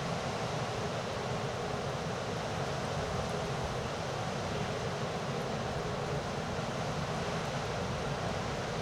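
Steady rush of ocean surf and wind, even throughout with no distinct breaks or impacts.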